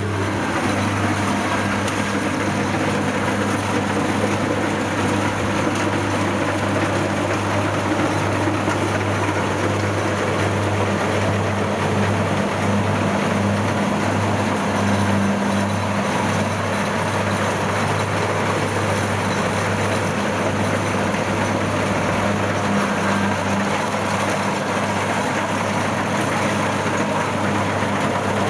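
Kubota DC60 rice combine harvester's diesel engine running steadily as the machine drives through the field: an even, low drone.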